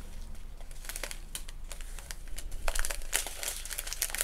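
Small clear plastic bags of diamond painting drills crinkling as they are handled and turned over, with a denser burst of crinkling about three seconds in.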